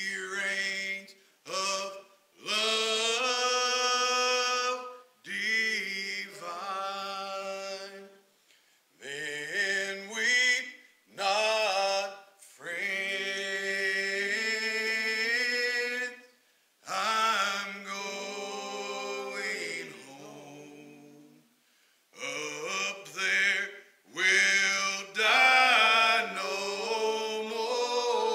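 One voice singing a hymn unaccompanied, in long held phrases with short breaks between them.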